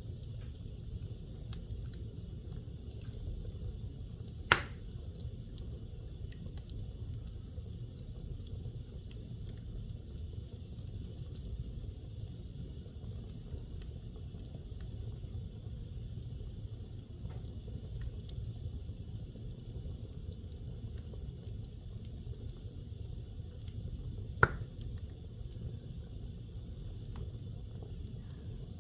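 Wood fire burning in a fireplace: a steady low rumble of flames with faint small crackles, and two sharp loud pops, about four and a half seconds in and near the end.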